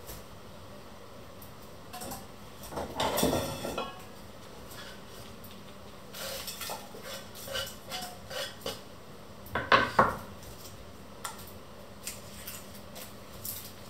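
A kitchen knife and a small wooden board knocking and scraping against an enamel bowl as onion peelings are knocked off the board into the bowl. There is a scraping clatter about three seconds in, a run of light knocks, and the loudest clatter about ten seconds in.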